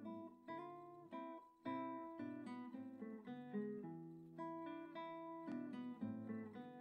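Quiet background music on a plucked guitar, a run of chords with notes changing every fraction of a second.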